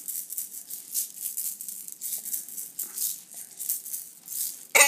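Plastic baby rattle shaken repeatedly in front of the baby, a dry high-pitched rattling in quick irregular strokes. Just before the end, a short loud burst of a child's voice.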